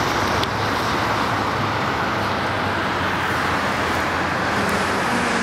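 Steady road traffic noise from passing cars, mostly a dense tyre hiss, with an engine's low hum coming in near the end.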